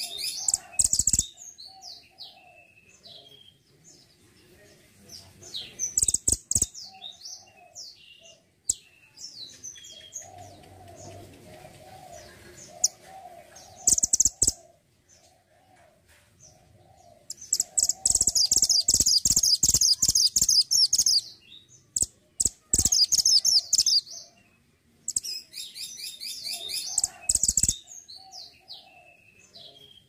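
Caged mantenan gunung, a black-headed, orange-red songbird, singing in repeated bursts of rapid, high-pitched twittering, the longest run lasting about three to four seconds past the middle.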